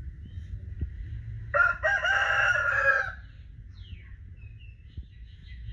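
A rooster crowing once, starting about a second and a half in and lasting a little over a second. Faint bird chirps follow near the end.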